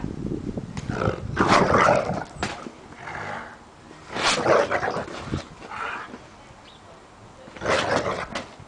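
A Rottweiler making dog sounds while playing with a ball, in several loud bursts about a second in, just past four seconds and near the end.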